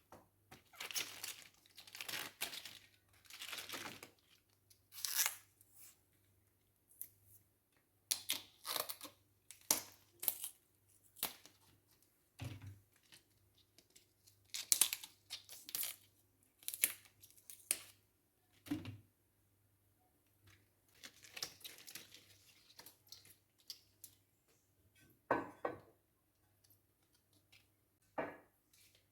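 Packaging being torn open and crinkled by hand in irregular rustling strokes, with a few soft knocks in between.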